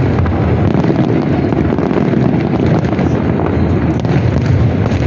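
Aerial firework shells bursting in rapid, overlapping succession, a continuous loud rumble of bangs with no gap between them.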